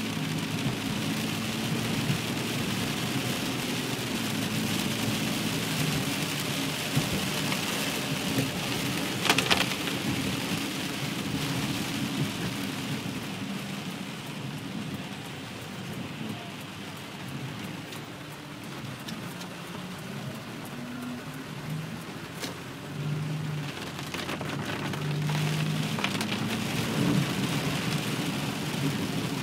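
Heavy rain falling on a car's windshield and roof, heard from inside the moving car as a steady hiss, with a single sharp knock about nine seconds in.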